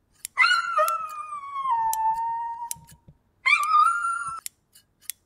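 A small dog whining in two long high cries, the first sliding slowly down in pitch over about two and a half seconds, the second shorter, with sharp snips of grooming scissors in between.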